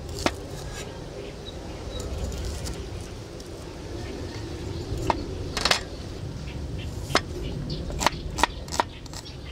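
Cleaver slicing a red onion on a wooden cutting board: sharp knocks of the blade striking the board, one early and the rest after about five seconds, several in quick succession near the end.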